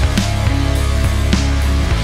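Instrumental melodic rock backing track in C# minor at 104 beats per minute: electric guitar, bass and a drum kit playing a steady beat.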